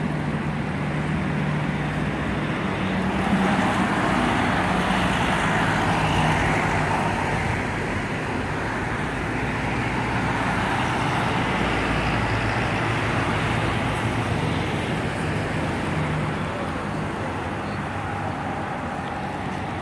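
Steady road traffic noise from cars passing on a wide multi-lane road, with a low engine hum that swells and fades as vehicles go by.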